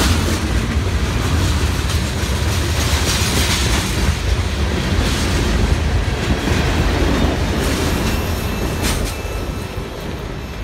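Freight train's tank car and open hopper cars rolling past at close range: a steady heavy rumble with wheels clacking on the rails, the sound dropping away near the end as the last car passes and moves off.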